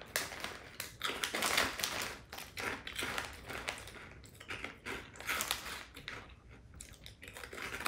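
Crunching and chewing of small fish-shaped puffed rice crackers with a sweet glaze: a stream of irregular crisp crackles.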